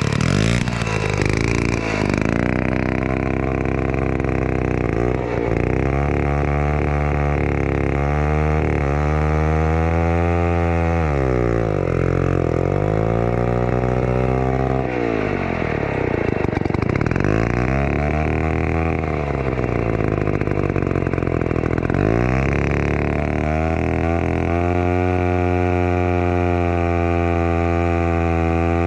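Vintage Be-Bo 125cc two-stroke chainsaw engine running, its revs dipping and recovering several times before settling into a steady run near the end. The owner puts its occasional stumble down to the float-bowl carburettor picking up dirt from the tank.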